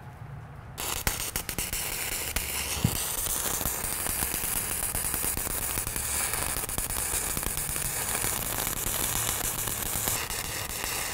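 Stick welding arc laying a hardfacing electrode bead on steel plate, run on the machine's 7018 setting with a very soft arc. The arc strikes just under a second in, then burns with a steady crackle and sizzle.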